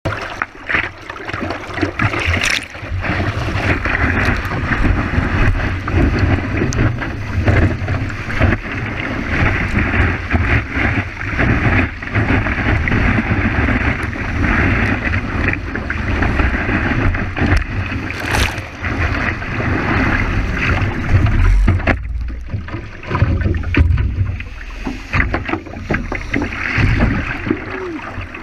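Water rushing and splashing right against a surfboard-mounted action camera as it rides a wave, with heavy wind buffeting on the microphone. The splashing rush eases about three-quarters of the way through, leaving mostly low wind rumble and lapping water.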